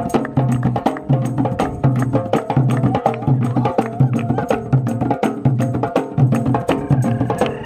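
Party music with a steady beat: sharp percussion hits over a repeating bass pulse.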